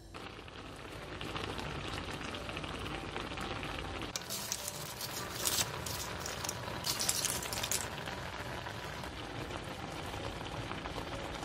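Pot of saury kimchi stew boiling on the stove: a steady bubbling and crackling sizzle, with louder, hissier stretches around the middle.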